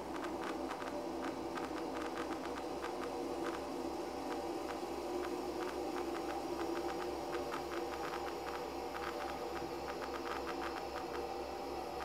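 Electronic ambient rainforest-storm soundscape, built from synthesis and manipulated samples, played through loudspeakers: a steady droning hum with scattered crackling clicks over it and a low throb pulsing a few times a second.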